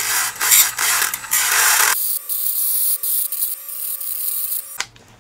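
Dremel rotary tool grinding the clipped edges of an aluminum servo mount smooth in short, stuttering passes. It then spins freely with a steady whine for a few seconds and switches off near the end.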